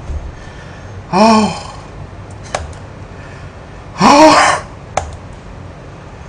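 A man groaning in discomfort: two short strained cries, about a second in and about four seconds in, each rising then falling in pitch, with a couple of faint clicks between them.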